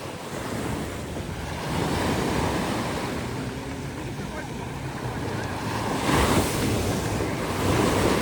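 Ocean surf washing onto the beach, a steady rush that swells louder about two seconds in and again around six and eight seconds, with wind buffeting the microphone.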